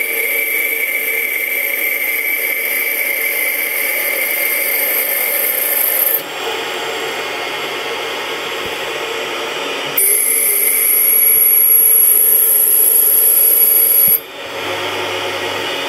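A Tormach PCNC 1100 mill spindle spinning an acetal rod against a fixed turning tool, giving a steady scraping cutting noise over the spindle's high whine. The sound drops abruptly and loses its high whine about six seconds in and again near the end, coming back in between.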